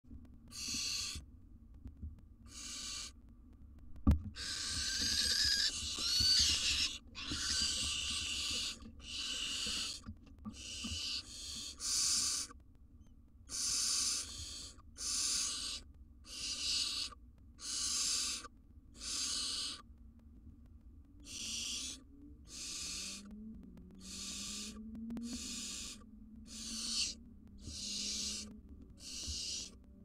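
Barn owl nestlings giving their hissing begging calls: a rough, breathy hiss repeated about once a second, almost unbroken and loudest for a few seconds near the start. A single sharp knock sounds about four seconds in.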